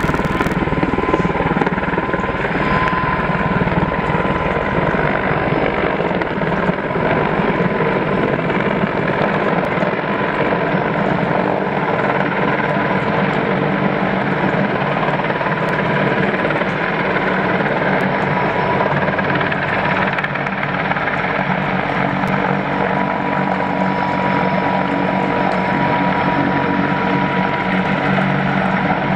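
Firefighting helicopter running loud and steady overhead, engine and rotor noise with a thin steady whine through it.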